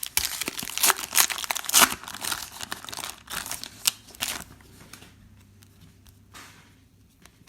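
Trading card pack wrappers being torn open and crinkled, with dense crackling for about four and a half seconds before it turns quieter.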